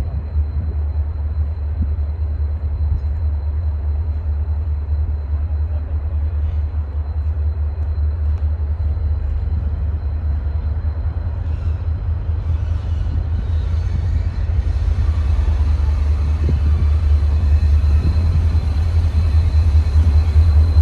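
Diesel freight locomotive running with a steady low rumble, growing louder in the second half.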